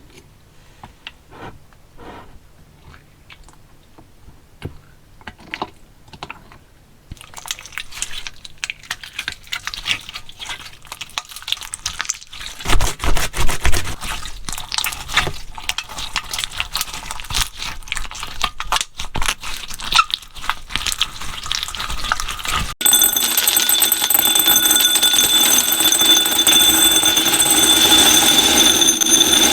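Crackling and clicking from small beads or slime being handled, sparse at first, then denser and louder, with low thuds about halfway through. About 23 s in, a steady alarm-like ringing with several fixed pitches starts abruptly and takes over.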